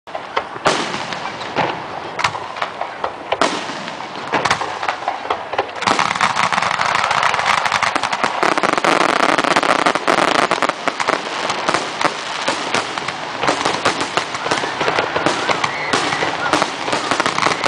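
Aerial fireworks finale: a barrage of shell bursts and bangs, becoming a dense, nearly unbroken run of reports about six seconds in.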